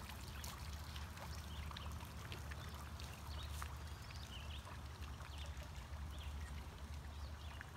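Water from a tiered garden fountain splashing and trickling steadily into its basin, over a steady low rumble.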